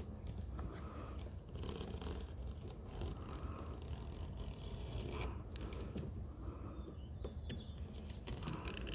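Faint, irregular scraping of hands and a tool being worked along the aluminium frame and spline channel of a screen door, with a few soft clicks.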